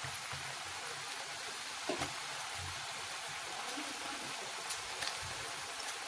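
Nimki, pieces of maida dough, deep-frying in hot refined oil in a kadhai: a steady sizzle, with a few short clicks as a spatula stirs the pieces.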